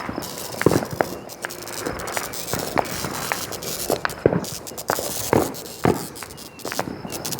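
A string of sharp cracks and pops at irregular intervals, about a dozen, some with a short ringing tail.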